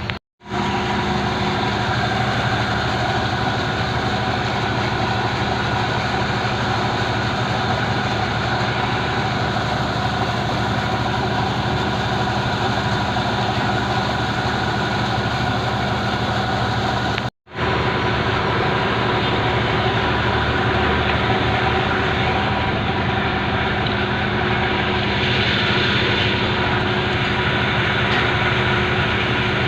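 Excavator's diesel engine running steadily, a constant drone with several held tones. It drops out abruptly twice for a moment.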